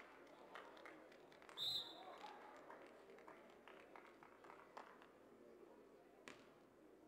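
A short, high referee's whistle blast about one and a half seconds in, the signal to serve, over faint background voices. Near the end comes one sharp slap of the server's hand striking the volleyball.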